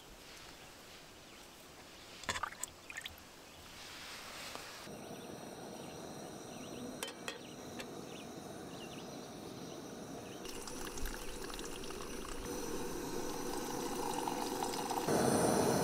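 A knife slicing small potatoes into a stainless steel pot of water, with a few sharp clicks about two to three seconds in. Then the steady hiss of a two-burner gas camp stove, and near the end liquid poured from a soft flask into a camp cup.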